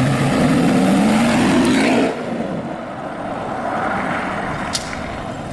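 BMW Z4 sports car engine revving, its pitch rising for about two seconds, then dropping to a quieter run.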